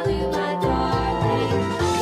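Upbeat background music with sustained notes over a bass line pulsing about twice a second.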